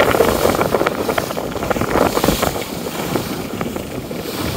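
Wind buffeting the microphone aboard a sailing yacht under way, a rough rushing noise that swells and dips.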